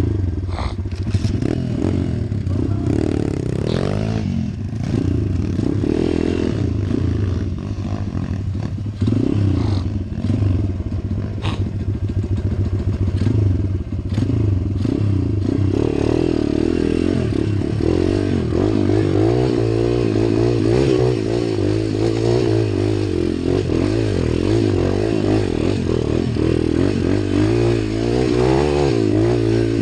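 YX 140 cc pit bike's single-cylinder four-stroke engine revving up and down as it climbs a rocky dirt trail. Stones clatter and scrape under the tyres, with a few sharp knocks.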